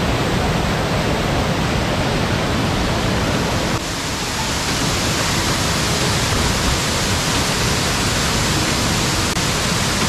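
Waterfall pouring into a plunge pool, close by: a steady, loud rush of falling water, with a slight change in sound about four seconds in.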